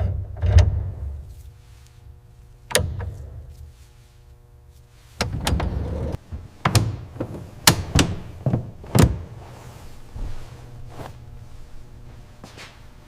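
A series of separate knocks and clunks, about ten of them, including a quick cluster in the middle, over a low steady hum.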